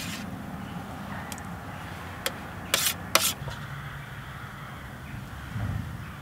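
A metal spoon clicking and scraping against a metal pot while the stew is being eaten: a handful of sharp clicks in the middle, over a steady outdoor hiss.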